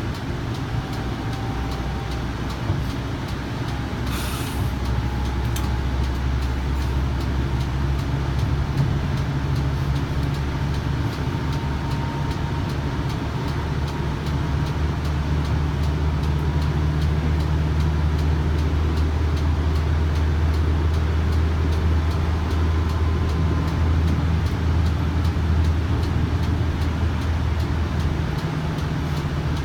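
Kinki Sharyo light rail vehicle running at speed, heard from inside the car: a steady low rumble of wheels on rail, with a faint whine that rises slowly in pitch. A brief hiss comes about four seconds in.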